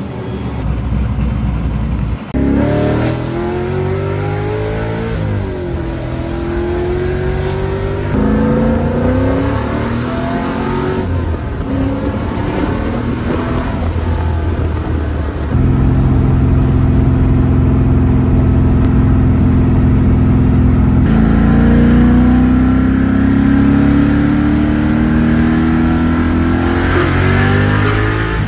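LS V8 in a BMW E36, heard from inside the cabin, accelerating hard in several pulls, its pitch climbing through each one. The last pull runs past 6,000 rpm.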